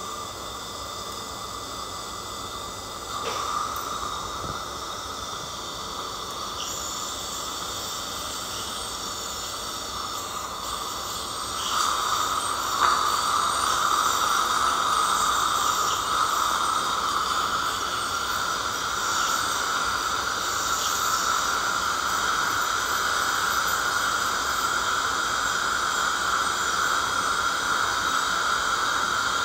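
Woodpecker ultrasonic dental scaler running against tartar-coated teeth: a steady hiss from its water spray with thin, steady high-pitched tones. It grows louder about twelve seconds in.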